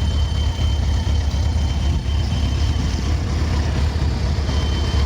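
Honda CBR1100XX Super Blackbird's inline-four engine idling warm, with a thin high whistle over the steady idle that fades in the middle and comes back near the end. The whistle, heard only with the engine warm, came from a failing water pump; replacing the pump cured it.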